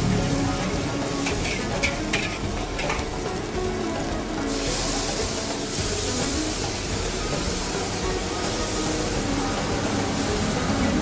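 Nasi goreng stir-frying in a steel wok over a gas burner. A metal spatula scrapes and clacks against the wok a few times early on, then about four and a half seconds in the sizzling jumps up into a steady, strong hiss.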